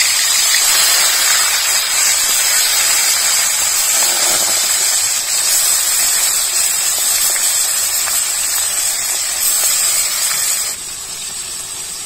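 Pieces of chona fish frying in hot mustard oil in a kadhai: a loud, steady sizzle that drops to a quieter level near the end.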